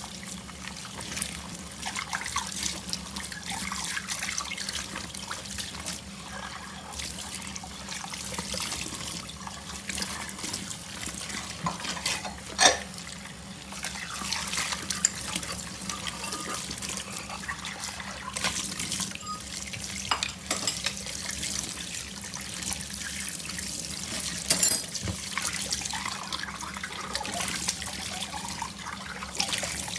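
Water running from a tap into a sink, with a few sharp clinks, the loudest about twelve seconds in and again near twenty-five seconds.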